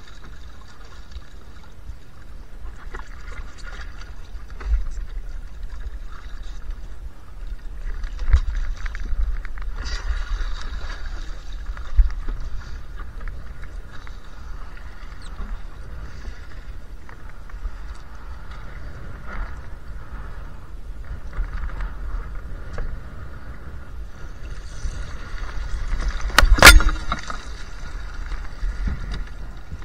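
Laser 2 sailing dinghy moving fast in strong wind: water rushing and splashing along the hull over a steady low wind rumble. There are a few sharp knocks, the loudest near the end.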